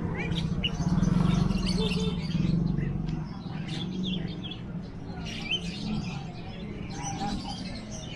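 Caged birds chirping, many short high calls overlapping, over a low steady hum that is loudest in the first few seconds.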